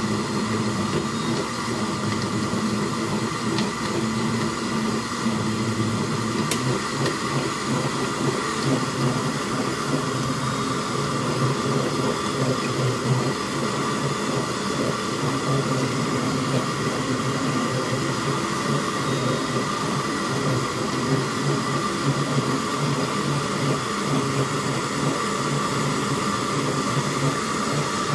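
Electric countertop blender running steadily with a high motor whine, blending a cantaloupe shake.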